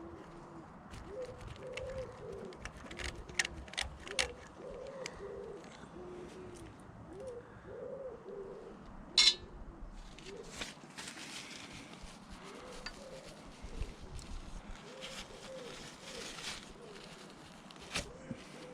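A pigeon cooing in repeated phrases of short, low, arching notes, with scattered sharp clicks and taps, the loudest about nine seconds in.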